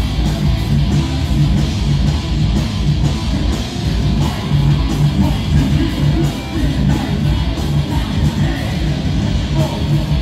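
Heavy metal band playing live: distorted electric guitars, bass and drums at full volume, heard from within the crowd.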